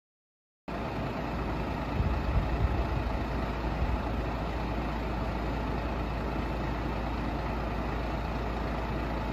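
Fire-rescue pumper platform truck's diesel engine idling steadily, cutting in abruptly under a second in, with a few louder knocks in the first few seconds.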